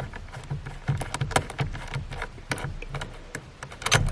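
Irregular metallic clicks and light knocks of a wrench and socket as the steering wheel's centre bolt, already broken loose, is unscrewed.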